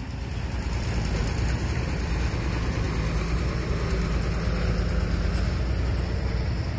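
Caterpillar hydraulic excavator's diesel engine running steadily, growing louder about a second in as the boom and arm are moved.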